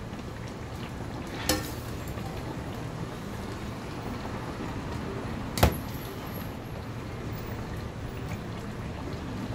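A metal spoon clinks twice against the dishes as stew is spooned into a ceramic bowl, once about a second and a half in with a short ring and once sharply about five and a half seconds in, over a steady low background rumble.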